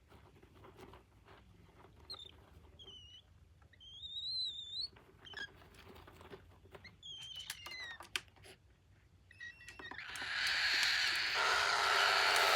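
Cockatiel giving a few short, wavering whistled chirps, then a falling chirp, with scattered soft clicks. Near the end comes a loud hiss-like rush of noise lasting about two and a half seconds.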